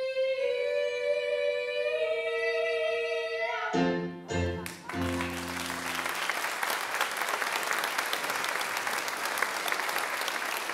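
Two women's voices hold the final sung 'miaow' note of a comic cats duet, one sliding up and the other down. About four seconds in a piano plays three closing chords, and applause follows.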